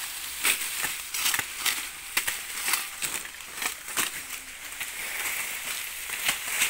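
Dry sugarcane stalks and leaves crunching and snapping over a steady rustle. Sharp cracks come about twice a second for the first four seconds, then only a few more near the end.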